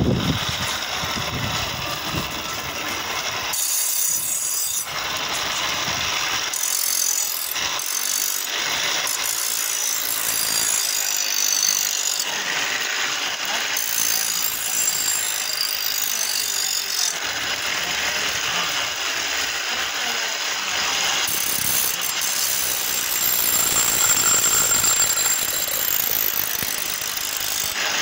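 A knife blade being ground against the spinning stone of a foot-pedalled grinding wheel: a continuous rasping hiss of steel on stone that shifts in strength, with the clatter of the machine's chain and belt drive.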